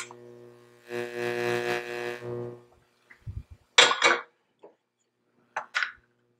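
Cookware being handled while a finished omelette is plated: a steady droning scrape lasting nearly two seconds, then a couple of dull thuds and a few sharp clinks of a frying pan and plate, about four seconds in and again near the end.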